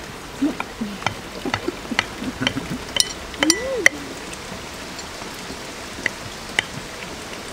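Metal forks and a knife clinking against porcelain plates. A quick run of light ringing clinks over the first four seconds, then two more a little after the midpoint, over a steady background hiss.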